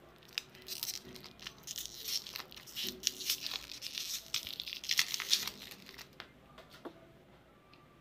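A lollipop's shiny wrapper crinkling and tearing as it is peeled off by hand, with many sharp crackles. The crackling dies away after about five and a half seconds, leaving only a few light ticks.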